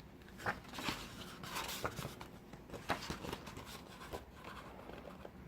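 Faint paper rustling and soft taps from the pages of a photobook being handled and turned, a handful of short rustles spread irregularly.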